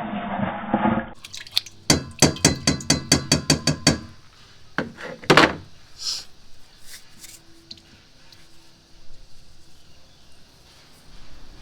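A utensil clinking and tapping rapidly against a container, about seven strokes a second for two seconds, then a couple of louder knocks and scattered light clicks, as when slime ingredients are stirred. A muffled sound cuts off about a second in.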